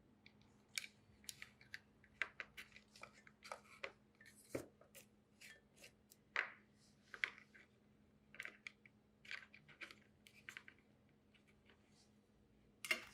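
Faint, irregular small clicks and taps of a soldering iron and small tools touching parts on a circuit board, over a faint steady low hum.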